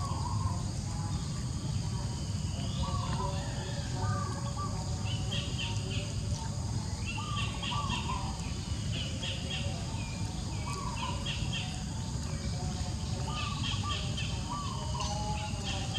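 Outdoor ambience of birds calling over and over: quick runs of high chirps and lower sliding notes, over a steady low rumble.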